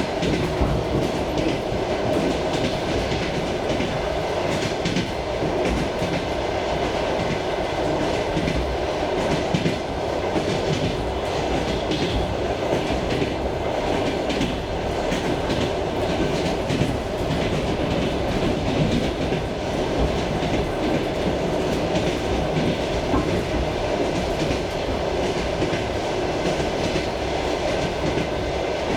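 Suburban electric train running at speed, heard from inside a passenger car: a steady rumble with the wheels clattering over the rail joints.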